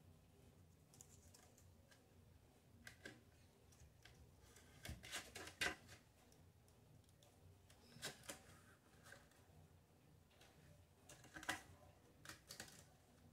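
Faint, scattered clicks and crackles of stiff plastic being handled: a butterfly cut from a fabric-softener bottle being fitted onto the plastic bottle vase, with the loudest cluster about five seconds in.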